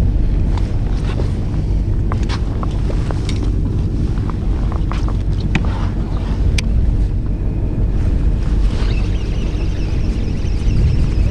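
Wind buffeting the microphone over the steady low rumble of a fishing boat's engine, with scattered small clicks and taps.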